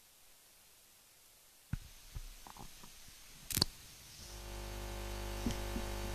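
A microphone being handled: a knock, a few small taps and a sharp click, then from about four seconds in a steady electrical hum from the sound system.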